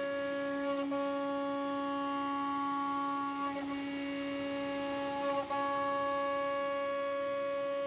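CNC router spindle and end mill cutting 12 mm 5083 aluminium plate, giving a steady pitched hum that dips briefly twice partway through.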